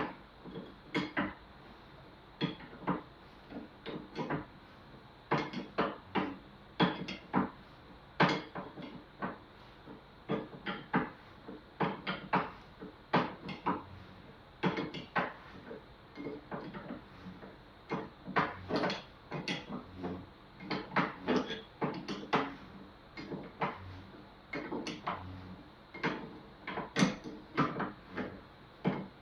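Irregular metal clicks and knocks, one to three a second, of a tool working the threaded spring locking rings loose on a Yamaha TZR250 3XV rear shock absorber held in a vise.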